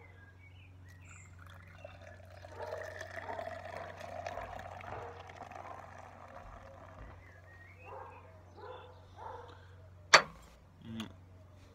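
Beer pouring from a glass bottle into a pint glass: a splashing pour that swells a couple of seconds in and thins out after about seven seconds. Near the end comes a single sharp knock, the loudest sound.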